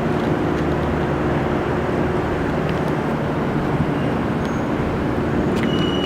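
Steady outdoor city traffic noise, with a low engine hum that fades out over the first couple of seconds.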